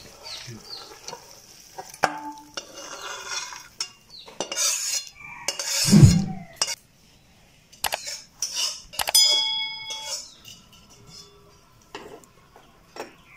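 Metal spatula scraping and knocking against a kadai and a stainless-steel bowl as fish curry is tipped out, with clinks and clatters of metal on metal. A heavy thud comes about six seconds in and a ringing metallic clang a little after nine seconds.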